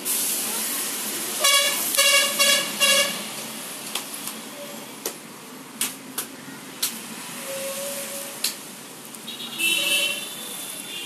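A vehicle horn honking in four short blasts, with a second horn sounding near the end. In between come a few sharp single knocks.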